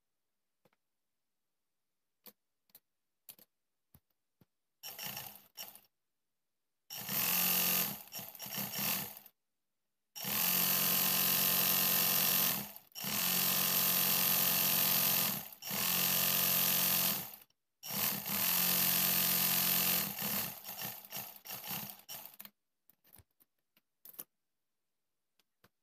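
Black-head sewing machine stitching fast in a series of runs, each about two seconds long with brief stops between. The runs start about five seconds in and end with a few stop-start stitches and faint clicks near the end.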